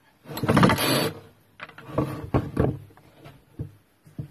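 Recoil pull-start cord of a JCB M25 two-stroke grass strimmer pulled once about half a second in, turning the engine over without it running, followed by several short knocks and clicks. The new ignition coil is being tried for spark.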